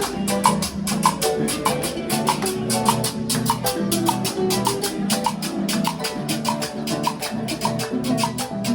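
Instrumental passage of a vallenato played on harp and guitar with hand percussion: plucked harp and guitar notes over a fast, even percussion rhythm.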